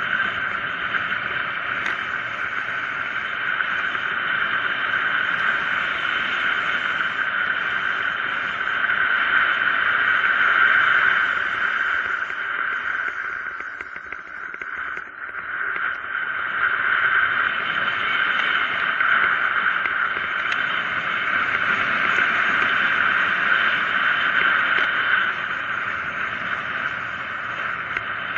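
Wind rushing over the camera microphone during a fast downhill ride on a mountain bike, a steady hiss that drops off briefly about halfway through as the rider slows for a hairpin bend, then builds again.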